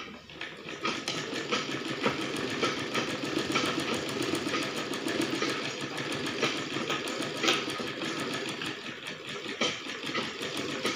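Sewing machine running steadily, starting abruptly, with a fast clatter of the needle mechanism as it stitches bias piping onto the ruffled edge of a frock.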